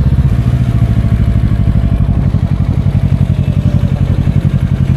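Motorcycle engine running, a loud, low, rapid and even pulsing.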